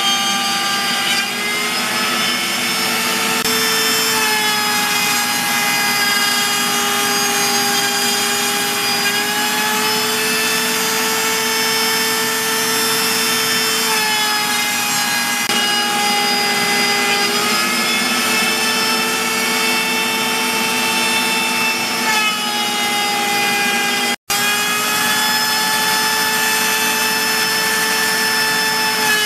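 Router spindle on a CNC router cutting slots into a hardwood board, a loud steady whine that shifts a little in pitch as the bit takes and loses load, over the rush of a shop vac pulling the chips out through the dust shoe. The sound cuts out for an instant about 24 seconds in.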